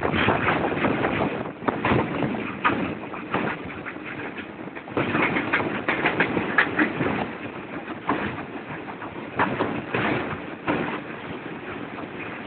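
Matarmaja passenger train running through a tunnel: a steady rumble of wheels on rails with irregular clattering knocks.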